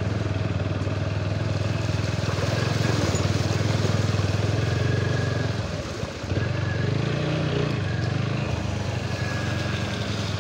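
Motorcycle engine running at low speed. The engine note drops briefly about six seconds in, then picks up again.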